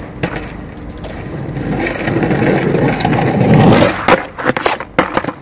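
Skateboard wheels rolling over rough asphalt, growing louder as the board comes close, then a few sharp clacks of the board against the concrete curb and ground about four seconds in.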